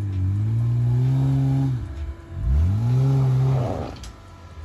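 Off-road vehicle's engine revved in repeated throttle bursts: the pitch climbs quickly, holds for about a second and a half, then falls back, twice. A short rough scrabbling noise comes near the end of the second burst.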